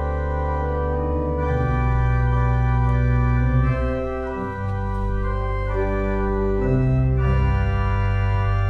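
Organ playing slow, sustained chords over a deep bass line, the harmony changing every second or two.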